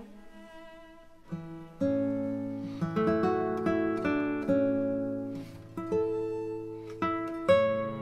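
Background music of plucked strings in a slow melody, sparse at first and filling out with a run of notes after about a second and a half.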